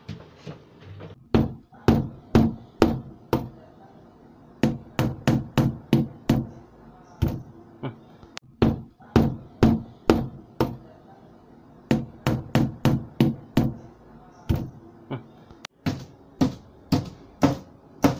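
A screwdriver used as a makeshift hammer, knocking repeatedly against a wooden cabinet to drive out its nails: sharp knocks in quick runs of several strikes, with short pauses between runs.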